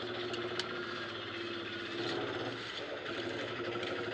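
A steady motor drone, holding one low pitch, with a single sharp click about half a second in.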